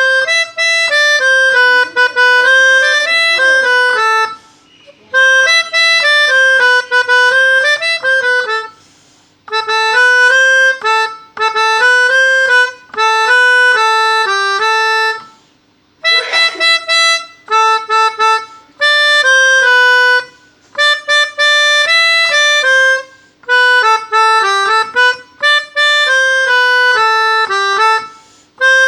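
Pianika (melodica) playing bus-horn 'telolet' tunes: short bright melodic phrases of a few seconds each, separated by brief pauses.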